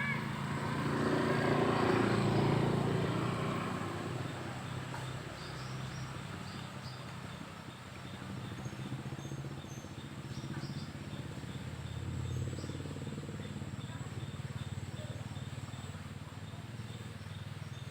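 A motor vehicle's engine hum swells and fades as it passes, loudest about two seconds in, with a smaller swell later. Birds chirp now and then over a steady outdoor background.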